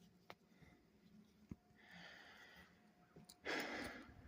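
A person breathing out twice, a soft breath about two seconds in and a louder one near the end, with a few faint clicks.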